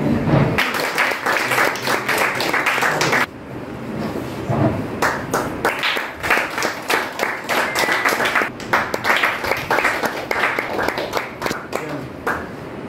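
Audience applauding with hand claps, in two rounds: a short burst of about three seconds, a brief lull, then a longer round that dies away near the end.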